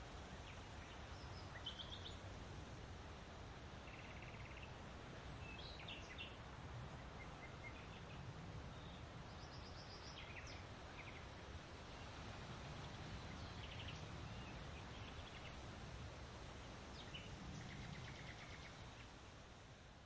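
Faint outdoor ambience: birds giving short, scattered chirps and calls over a steady low rumble of background noise.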